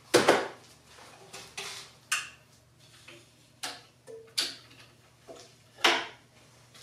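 Scattered sharp clicks, taps and knocks of hard objects being handled, about ten in all, over a faint steady low hum. The sharpest knocks come just after the start and about a second before the end. The belt grinder is switched off.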